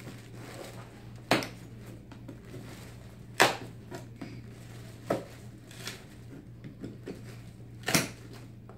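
Sharp cracks and snaps of a leg cast being pried and cut open along its saw line, five of them a second or two apart, over a low steady hum.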